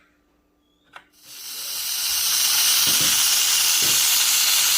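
Pressure cooker venting steam. After a click about a second in, a loud steady hiss builds up and holds: the cooker's whistle, the sign that it has come up to pressure.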